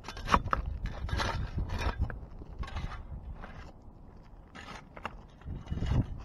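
Flat metal shovel scraping and prying along a shingle roof ridge in repeated irregular strokes, about one a second, as it tears off old ridge vent.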